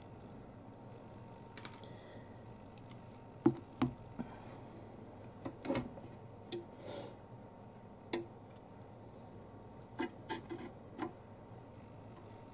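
Scattered light clicks and taps of small pliers and a phone LCD panel being handled against the metal plate of a heated screen separator while the panel's metal frame is pulled off. They come in short clusters a few seconds apart.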